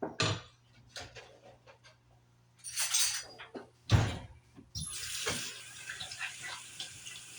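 Kitchen clatter of dishes and utensils, with a sharp knock about four seconds in, then water running steadily from a tap.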